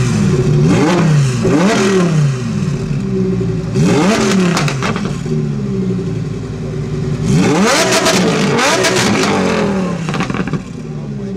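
A high-performance car engine idling and being revved in about six sharp blips. Each blip rises quickly in pitch and falls back to idle.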